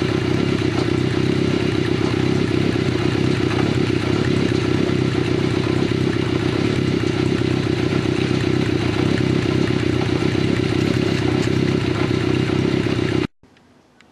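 Kawasaki Z550FX air-cooled inline-four engine idling steadily through chrome short exhaust pipes fitted with 70×25 mm inner silencers. The sound stops abruptly about thirteen seconds in.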